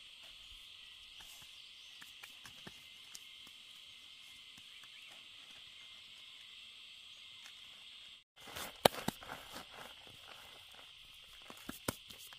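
Steady high-pitched insect drone with a few faint rustles. After a short break about eight seconds in, close crackling and clicking of a plastic sheet and dry leaf litter come in as hands sift ant eggs from the debris, loudest just before nine seconds and again near the end.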